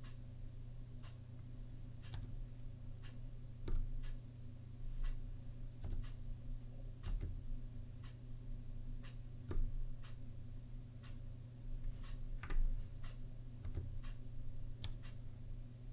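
Keystrokes on a Zilpzalp ergonomic keyboard with low-profile Kailh Twilight switches: slow, irregular typing, about one or two clicks a second, some louder than others.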